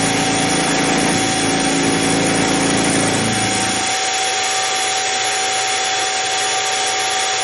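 Harbor Freight 44991 mini mill running, its spindle motor giving a steady whine while the end mill cuts a radius on a metal link that is swung by hand on a free-turning rotary table. The lower, heavier part of the sound drops away about four seconds in, leaving the steady motor whine.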